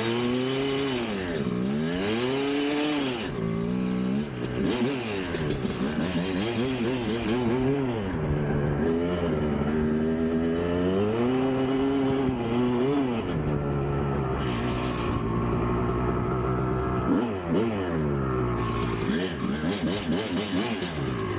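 1999 Kawasaki KX250 two-stroke single-cylinder dirt bike engine revving up and down again and again, its pitch rising and falling every couple of seconds as the throttle is worked.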